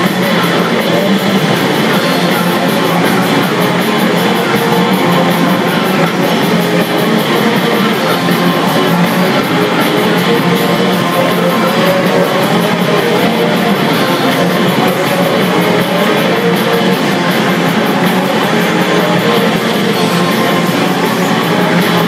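Loud rock music with electric guitar from a pachislot machine's soundtrack, playing steadily throughout.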